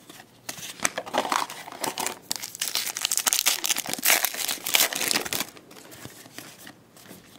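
Crinkling of a foil trading-card pack wrapper, with the cards rustling as they are handled. It is a dense run of small crackles through the first five seconds or so, then goes quieter.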